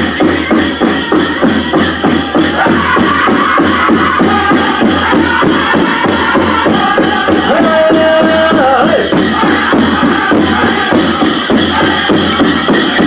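Powwow drum group playing a men's chicken dance song: a steady beat on the big drum with the singers chanting over it, holding one high note about eight seconds in.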